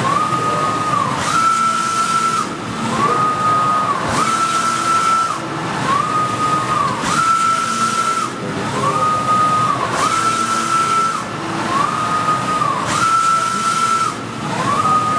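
Wide-format inkjet printer printing, its print carriage shuttling back and forth across the media. Each pass gives a whine that rises, holds steady, then falls as the carriage reverses, about one pass every one and a half seconds, with alternate passes slightly higher in pitch. A steady hiss runs underneath.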